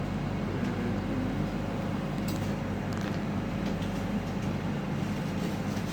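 Steady low mechanical hum with several low steady tones over an even hiss, like a motor, fan or generator running, with no distinct events.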